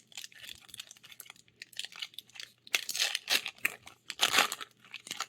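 A Magic: The Gathering booster pack's plastic foil wrapper being torn open and crinkled: a run of irregular crackling rustles, loudest about three and four seconds in.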